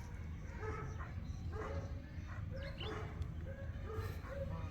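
Short pitched animal calls repeated about twice a second, with brief high bird chirps between them over a steady low hum.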